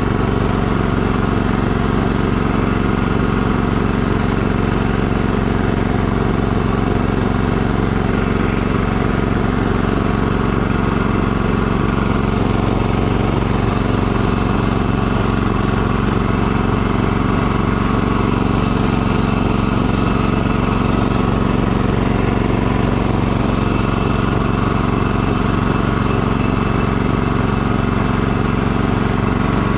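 Gas snowblower engine running steadily under load as the machine blows snow out of its chute.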